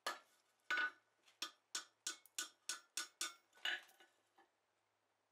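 Hand-hammer blows on a red-hot steel bar over the anvil horn, closing a bend. About ten light strikes come at roughly three a second, each with a short metallic ring, and they stop about a second before the end.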